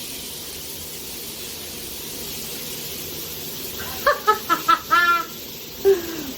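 Shower spray running steadily; about four seconds in, a quick run of short high-pitched calls from an animal, with one more call near the end.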